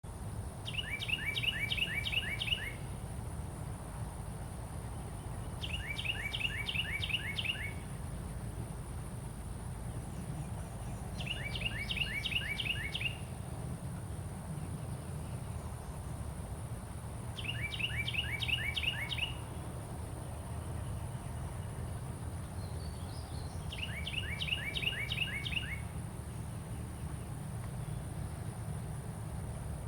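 Carolina wren singing: bouts of about two seconds of rapidly repeated ringing phrases, coming every five to six seconds, five times over.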